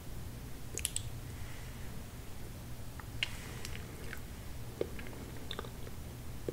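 Close-miked chewing of soft tiramisu cake: scattered small clicks and smacks of the mouth.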